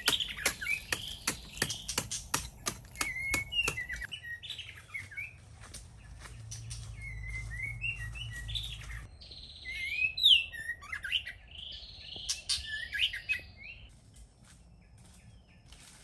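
Songbirds chirping in short repeated phrases, the loudest call about ten seconds in. For the first four seconds, rapid regular knocks, a few a second, of a hand tool striking into an earth bank, which then stop.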